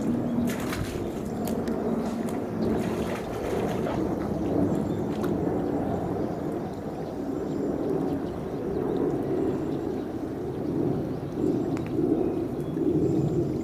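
Water gurgling and sloshing as an Indian rhinoceros drinks from a shallow pool with its mouth in the water. A few sharper splashes come in the first few seconds.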